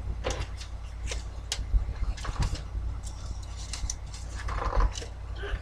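Cardboard cereal box being handled and set into a plastic laundry basket: scattered light knocks and rustles, with a soft thump near the end, over a steady low hum.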